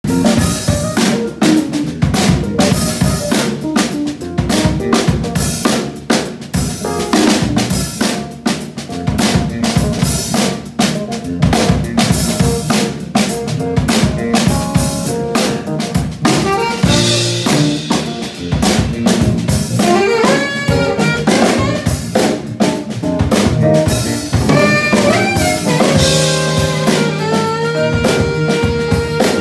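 A live band playing a funk groove, with a busy drum kit of snare, kick and rimshots throughout, along with electric keyboard. Sustained melody notes, plausibly from the saxophone, come forward about halfway through and hold long tones near the end.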